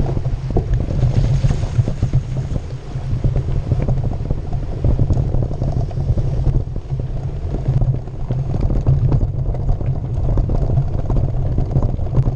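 Heavy wind buffeting on the microphone: a loud, gusting low rumble.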